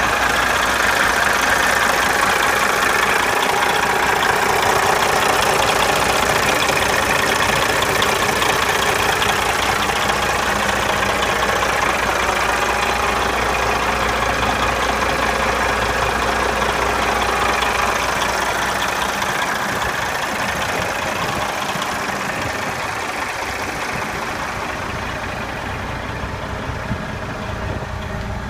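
A 1992 Kenworth T600's 370 hp Detroit Diesel DDEC engine idling steadily. It grows gradually fainter over roughly the last ten seconds.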